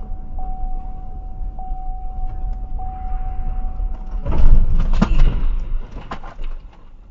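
A vehicle collision ahead, heard from inside a car: a loud, noisy crash starts about four seconds in, with two sharp knocks within it. Before it there is a steady high tone with a tick about every second.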